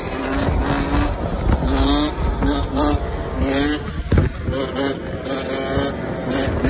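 ATV and motorcycle engines revving in short repeated bursts as they ride past in traffic, over a steady low rumble.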